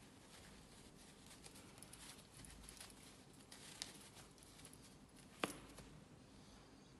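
Faint rustling and light taps of a knitted cotton glove being pulled onto a hand, with one sharp click late on.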